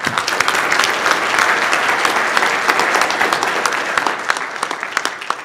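Audience applauding, dense clapping that thins out near the end.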